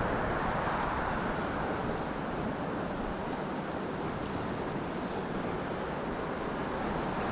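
Shallow river current flowing steadily around a wader's legs and over rocks, a constant even rush of water.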